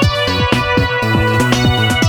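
Electronic background music with a steady kick-drum beat under a bass line and synth tones.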